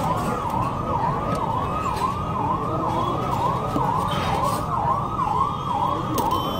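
A siren-like warbling tone, sweeping up and down about twice a second without a break, over a steady hum of street noise.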